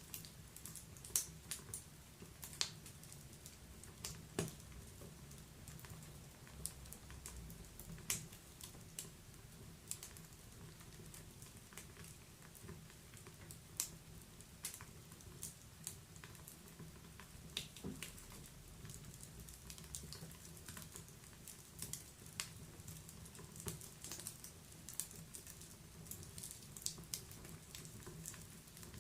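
Wood fire crackling in a fireplace: irregular sharp crackles and pops, a few louder than the rest, over a faint low steady sound of burning.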